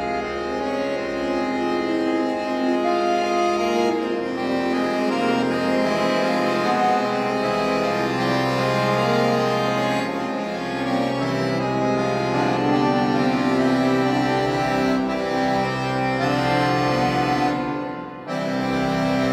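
Concert button accordion played solo, with dense sustained chords over held bass notes and a brief break in the sound near the end before the playing resumes.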